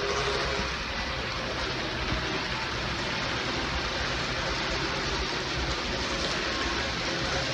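N-scale model trains running on the layout: a steady hiss of small wheels rolling on the rails, with a low hum underneath.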